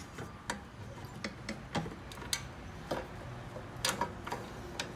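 Light, irregular metallic clicks and ticks, roughly two or three a second, as bolts are fitted to fasten steel brackets back onto a minivan seat frame.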